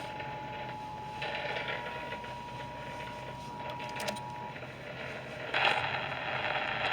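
Steady radio static hiss with a faint steady tone that stops about four and a half seconds in. A few clicks come around four seconds in, and the hiss gets louder about five and a half seconds in.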